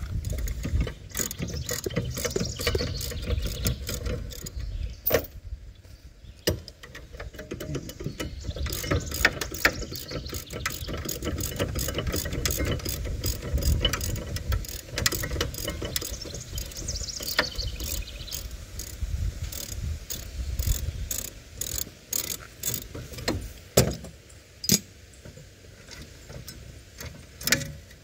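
Hand ratchet wrench clicking in runs as it is worked on the bolts behind a car's rear wheel hub assembly. A few sharp metallic knocks come near the end.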